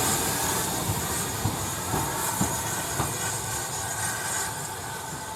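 Steam-hauled train running past on the track, its wheels clicking over the rail joints every half second to a second over a steady rush of noise that slowly fades as it moves away.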